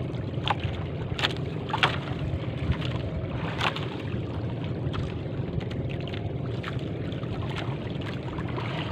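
Small fishing boat at sea: a steady low rumble, with a scattering of short knocks and clicks on board.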